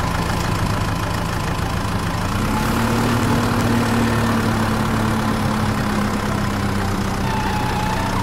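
Small electric motor and gearing of a homemade toy tractor whirring steadily as it drives along, its hum stepping up slightly in pitch about two and a half seconds in.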